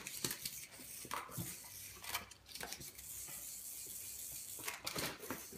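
Light, scattered clicks and scuffles of a small terrier pawing and nosing at a Hexbug toy on a rug, with a sharper cluster of clicks near the end.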